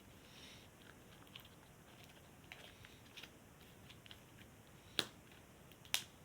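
Crunchy slime being pressed back into its pot, giving faint crackles and small clicks, with two sharp cracks about a second apart near the end.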